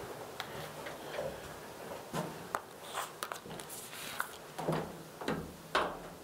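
Footsteps going down a staircase: an irregular run of knocks and scuffs, some heavier steps, starting about two seconds in.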